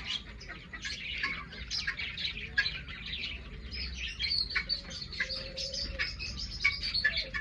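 A flock of budgerigars chirping and chattering, with many quick, overlapping calls.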